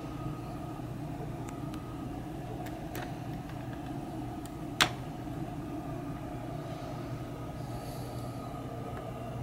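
Steady electric hum of a LEGO train motor running, with a few light plastic clicks and one sharp click about five seconds in as LEGO pieces are handled.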